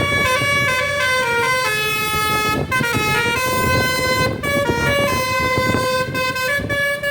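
Basuri telolet bus air horn playing a tune of held notes that step up and down in pitch, over a steady low rumble.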